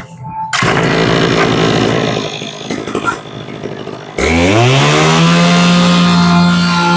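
Kawasaki 34cc two-stroke brush-cutter engine pull-started and catching within a second, then running unevenly. About four seconds in the throttle is opened at the carburettor; the engine revs up with a rising pitch and holds a steady high speed.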